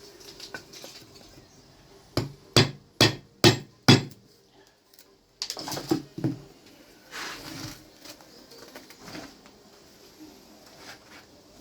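A mallet striking a carving chisel into wood: five sharp knocks about half a second apart, then a few rougher scraping stretches as the chisel works the wood.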